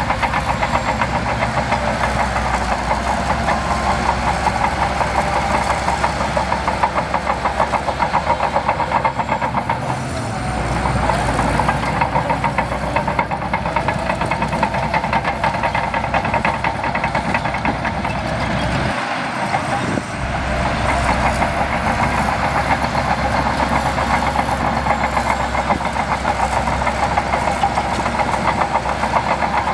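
Shantui DH17C2 bulldozer's diesel engine running steadily, with brief changes in its note about ten seconds in and again about twenty seconds in.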